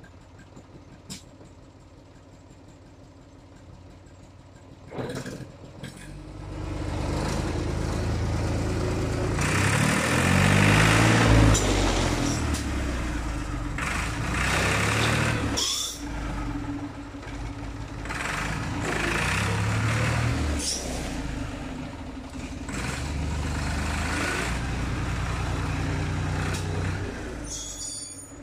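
Fiat Štore 504 tractor's diesel engine driving close by. It comes in about six seconds in, is loudest a few seconds later as the engine pitch rises and falls, then swells and dips as the tractor manoeuvres. A knock comes just before the engine sound, and a brief high squeal near the end as the tractor stops.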